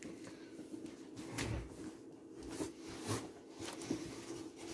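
Cardboard rubbing and scraping as a boxed RC car is slid out of its cardboard shipping carton, with a few soft knocks.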